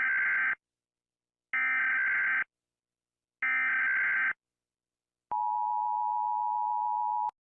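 Emergency Alert System signal: three bursts of digital SAME data tones, each about a second long and about two seconds apart, followed by the two-tone EAS attention signal held steady for about two seconds and cutting off suddenly.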